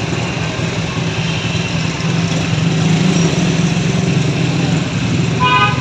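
A motor vehicle engine running steadily. A short steady pitched tone, like a horn, comes in near the end.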